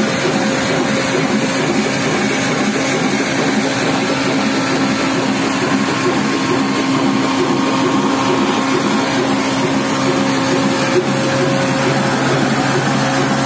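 Belt-driven village flour mill (atta chakki) running steadily, powered by a Ruston Hornsby engine: flat drive belts slapping over the pulleys and the grinding machinery turning, with a steady hum that drops lower about eleven seconds in.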